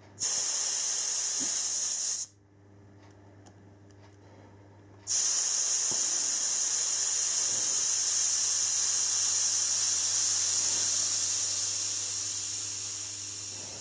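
Air hissing out of a scooter tyre's valve as it is held open to deflate the tyre: a burst of about two seconds, a pause, then a long hiss from about five seconds in that slowly weakens toward the end as the pressure falls.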